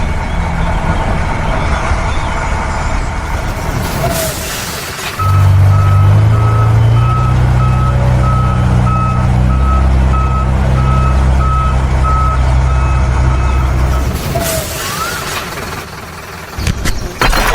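Truck engine running with a reversing alarm beeping at an even pace. The engine sound starts abruptly about five seconds in, and it and the beeping stop about fourteen seconds in.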